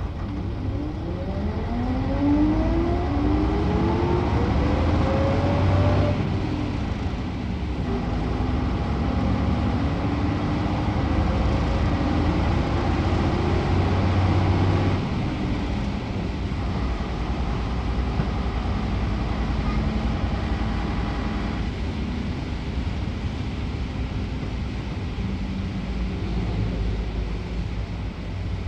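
A bus engine pulling away, its note rising over the first few seconds, then running on steadily with the note shifting a few times as it goes.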